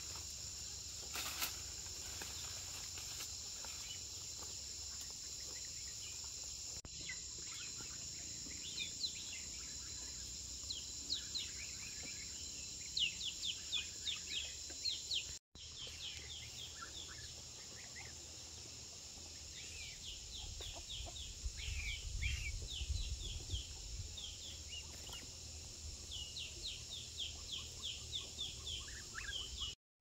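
Steady high-pitched insect drone, with runs of quick falling bird chirps repeating over it. The sound cuts out abruptly twice, about halfway through and just before the end.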